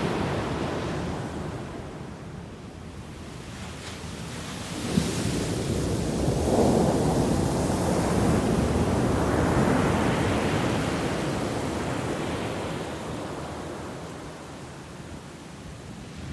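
Ocean waves on the shore: the wash of one wave fades away over the first few seconds, then about five seconds in the next wave breaks and its surf swells and slowly recedes.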